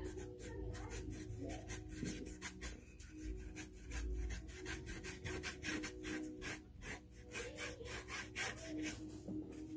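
A paintbrush scrubbing paint back and forth across a flat painting board in quick, repeated scratchy strokes.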